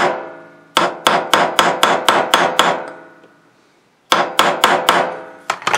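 A hammer tapping a metal punch in quick ringing strikes, about four a second, driving a bushing out of a Singer 201-2 potted sewing-machine motor. There are two runs of strikes with a short pause between them.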